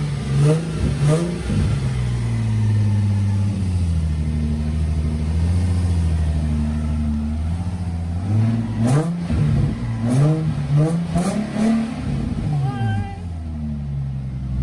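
Nissan 350Z's VQ35HR 3.5-litre V6 running through a freshly fitted catless exhaust (Z1 test pipes and an ISR single-exit cat-back with the resonator kept). It is blipped a few times near the start, settles to a steady idle, then is revved in a run of about four quick blips before cutting off.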